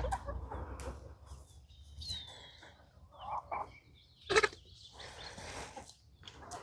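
Birds chirping outdoors, with one clear falling whistle about two seconds in, over scattered close rustling and handling sounds and a sharp knock about four seconds in.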